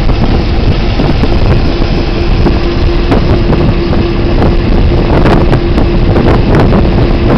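Diesel locomotive running along the track, heard from its outside platform: a steady engine drone and wheel rumble, with wind buffeting the microphone. A steady hum sets in about a second and a half in, and a few sharp knocks come through.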